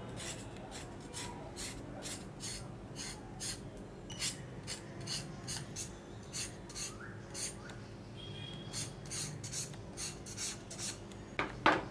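A knife scraping the skin off pointed gourd (potol) in quick repeated strokes, about two or three a second, with a pause of a few seconds in the middle. One louder knock comes near the end.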